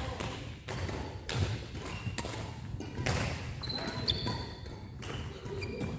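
Badminton rally: irregular sharp hits of rackets on the shuttlecock, mixed with footfalls on the wooden court floor and a few short shoe squeaks around the middle.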